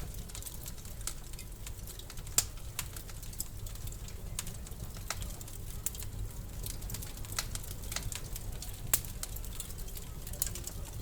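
Wood fire in a fireplace crackling: irregular sharp pops and snaps, a couple of them much louder, over a low steady rumble.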